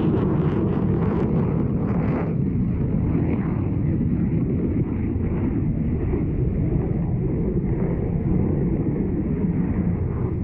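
Jet noise from an RAF Eurofighter Typhoon's twin EJ200 turbofans as it flies its display: a loud, steady, deep rumble. The higher hiss falls away after about two seconds, and the level then slowly drops as the jet moves off.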